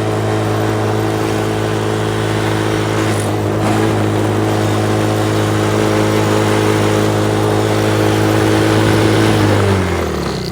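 ATV running at a steady speed with an even, constant-pitch note. Near the end the note falls in pitch as the machine slows down.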